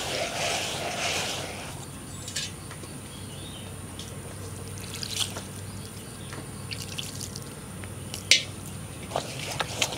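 Soaked rice being wet-ground in a hand-turned stone grinder: the stone pestle grinds round the mortar for about the first second and a half. Then water is added from a steel pot, and scattered drips and wet splashes follow, the sharpest about eight seconds in.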